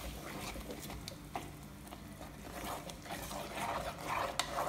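Metal spoon stirring a thick, wet coconut-and-spice paste in a clay pot on the stove, with soft scrapes and clicks against the pot and a faint sizzle from the heated mixture.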